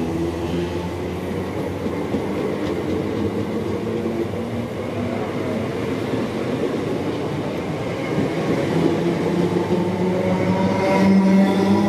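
Electric multiple-unit passenger train running past along the platform, a steady rumble of wheels on rail. In the last few seconds a whine rises in pitch and grows louder.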